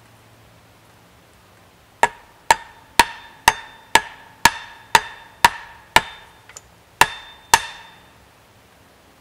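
An axe head pounding the top of an upright wooden stake to drive it into the ground: eleven sharp, ringing woody knocks about two a second, starting about two seconds in, with a short break before the last two.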